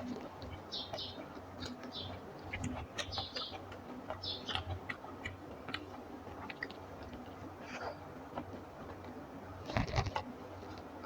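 Close-up eating sounds of rice and fish curry: scattered wet mouth clicks, lip smacks and chewing. There is a louder thump about ten seconds in.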